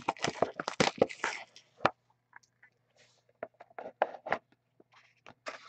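Plastic shrink-wrap crackling and tearing as it is stripped off a box of hockey cards, loudest in the first couple of seconds. After that come scattered light clicks and taps as the cardboard box is handled.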